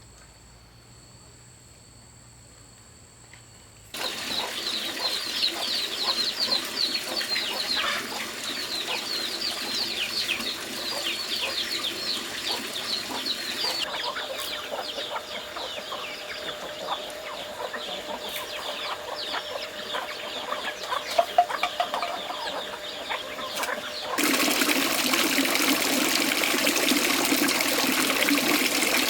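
Quiet at first, then poultry suddenly heard calling: many short, high, falling chirps with clucking mixed in. About 24 seconds in this gives way to a steady rushing noise.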